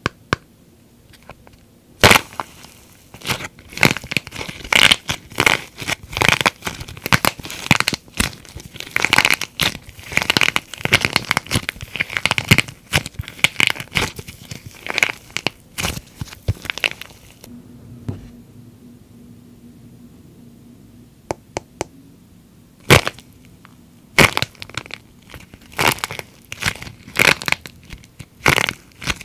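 Hardened plaster shell on soft clay cracking and crunching as hands squeeze it, in dense runs of sharp cracks. The cracking starts about two seconds in. It thins to a few small snaps past the middle, then picks up again with loud single snaps near the end.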